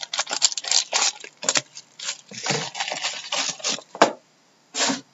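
A sealed trading-card box and its wrapping being ripped open by hand, a run of uneven tearing and crinkling, with a sharp snap about four seconds in and one more short rip near the end.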